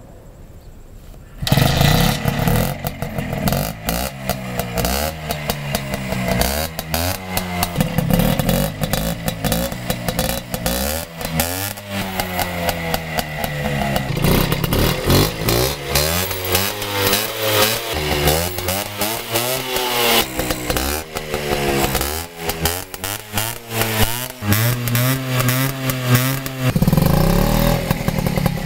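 Cafe-racer motorcycle engine starting about a second and a half in, then revved up and down again and again with a rattling clatter, settling to a steadier run near the end.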